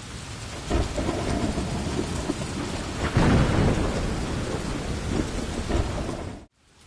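Steady heavy rain with thunder crackling and rumbling, the loudest rumble about three seconds in. The sound cuts off suddenly near the end, then fades back in.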